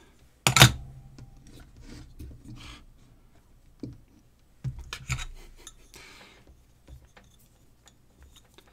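Clinks and knocks from handling the LED bulb with its metal heatsink on a hard bench: a sharp clink about half a second in, two more knocks around five seconds as it is set down, and light scattered clicks between.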